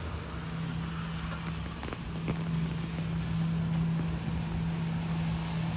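A steady low engine hum, holding one pitch, over a continuous hiss of street noise.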